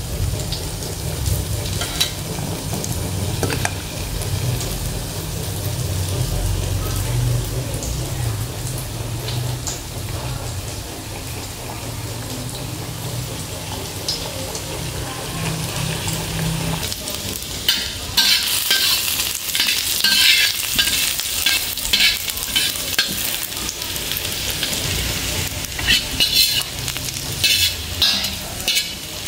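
Water boiling around eggs in a saucepan over a gas burner, a steady low bubbling rumble. About two-thirds of the way in this gives way to chopped shallots and garlic sizzling and crackling in hot oil in a steel wok, stirred with a spatula.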